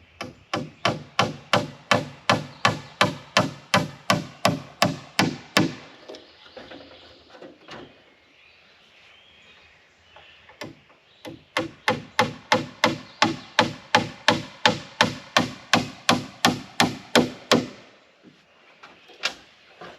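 Hammer driving spiral nails into wood framing: two runs of rapid, even blows at about four a second. The first run lasts about five seconds, and the second, after a pause, about six seconds, with a couple of single blows near the end.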